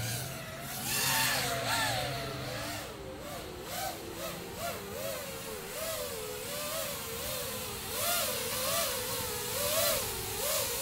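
FPV quadcopter's motors and propellers whining. The pitch keeps wavering up and down, about once or twice a second, as the throttle is worked while the quad is brought in to land.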